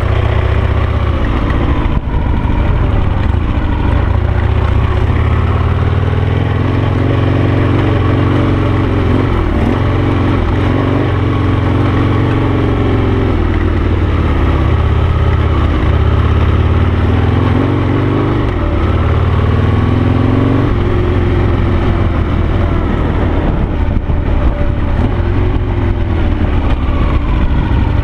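Harley-Davidson Sportster-based V-twin engine of a dual-sport motorcycle under way on a dirt trail, its pitch rising and falling repeatedly as the throttle is opened and closed.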